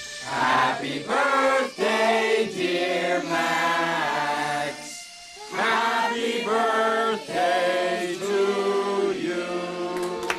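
A large group of voices singing together in sustained phrases, with a short break about halfway through.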